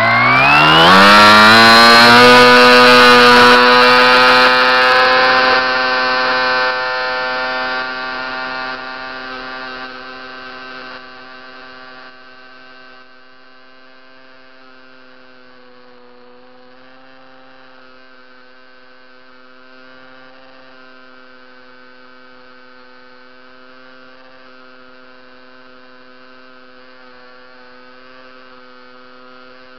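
Electric motor and propeller of a HobbyKing Coota RC seaplane spinning up to full throttle for a water take-off, heard from the onboard camera: the whine climbs in pitch over about the first second and then holds one steady high pitch. It grows fainter in steps over about the next ten seconds, then stays steady while the plane flies.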